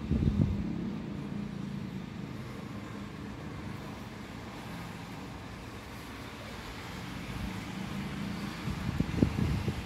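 Steady rain with road traffic on a wet city street below: an even hiss with a low hum of vehicles, and a low rumble just after the start and again near the end.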